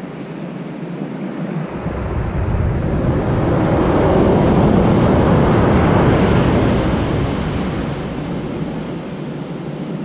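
Surf on a sandy beach: a wave washes in, building over a couple of seconds to a peak in the middle and then fading as it recedes.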